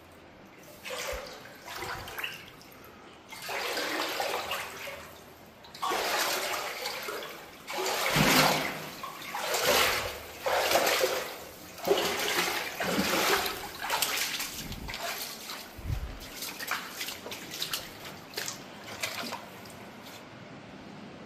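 Splashing and sloshing of shallow water in irregular surges of one to two seconds each, with a few dull knocks among them.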